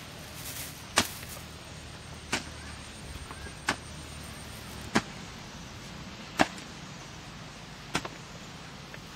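Six sharp, short clicks or taps, evenly spaced about one every second and a half, over a steady faint background.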